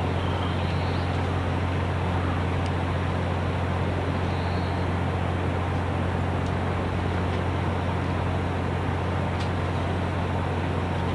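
Steady outdoor rumble with an even hiss over it, unchanging in level, with a few faint short chirps.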